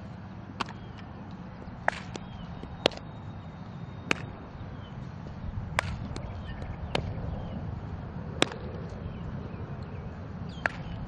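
Repeated sharp smacks of softballs hitting leather fielding gloves, about eight in all, spaced a second or two apart, some much louder than others, over a steady low rumble of wind.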